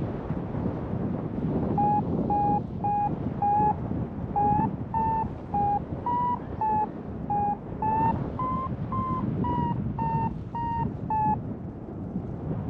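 Paragliding variometer beeping in rising air, the climb tone of the glider gaining height: short beeps about two a second, the pitch creeping up and then easing a little, over wind rushing across the microphone. The beeps stop a little before the end.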